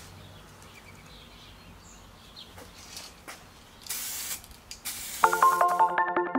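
Two hissing bursts from an aerosol spray can of 2K clear varnish: a short one about four seconds in, then a longer one of about a second. Faint bird chirps sound beforehand, and plucked-guitar music comes in near the end and is louder than the spray.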